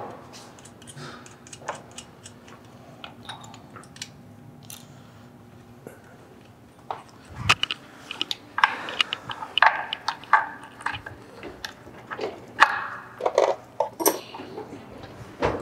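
Scattered light metallic clinks and taps of parts and hand tools as cam chain tensioners are fitted into a Porsche 993 engine's chain housing. The clinks are sparse at first and come thick and fast from about halfway through.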